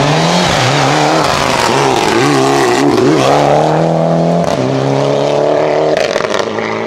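Mitsubishi Lancer Evo IX rally car's turbocharged four-cylinder engine accelerating hard away from a standing start. The pitch climbs and drops back with each upshift, and there are a few sharp pops from the exhaust near the end as the car draws away.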